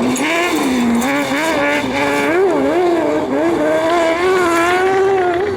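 A competition vehicle's engine running hard under repeated throttle changes, its pitch rising and falling several times, with quick blips about two and a half seconds in and a steadier, higher pitch held through the second half.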